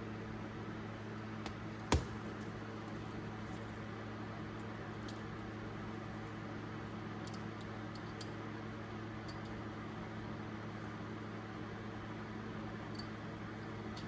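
Steady low hum in a small room, with one sharp click about two seconds in and a few faint ticks after it: small parts of an old Snap-on ratchet being handled while it is cleaned and greased.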